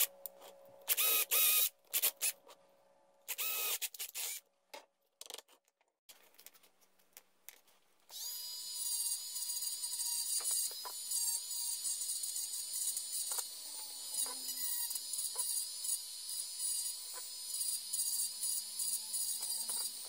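A cordless drill runs in a few short bursts, boring holes through thin plywood. About eight seconds in, a handheld rotary tool starts and runs with a steady high whine while its small bit shapes the edges of the plywood cut-outs.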